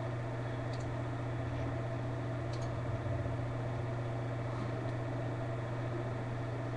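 Steady low hum of a computer picked up by the webcam's microphone, with a few faint clicks of a mouse as the software settings are changed.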